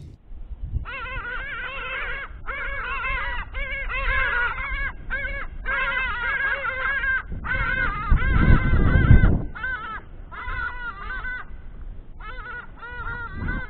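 Two large birds calling in flight: a long run of loud, quick, repeated calls, each note rising and falling, broken by short pauses. A low rumble swells for about two seconds around the middle.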